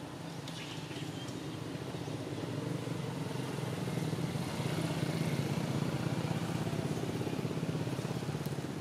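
A small engine running steadily, growing louder toward the middle and easing off a little near the end.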